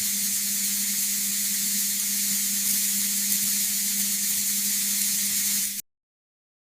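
A steady, even hiss with a low steady hum under it, cutting off suddenly about six seconds in.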